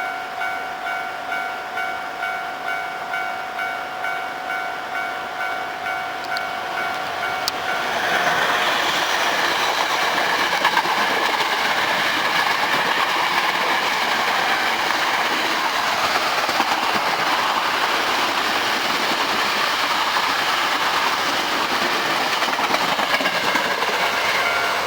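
Japanese railway crossing alarm ringing in a steady pulsed beat. About eight seconds in, Hankyu electric commuter trains (8300 and 1300 series) run past the crossing and drown it out, wheels clattering over the rail joints. Near the end the alarm beat comes through again as the trains clear.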